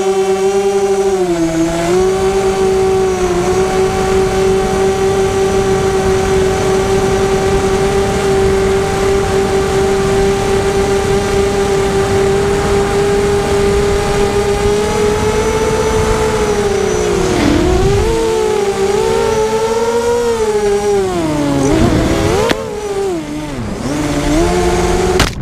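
Blackout 330 FPV quadcopter's four motors and propellers whining at a steady pitch, heard from the onboard camera; over the last ten seconds or so the pitch dips and rises again and again as the throttle is worked through turns.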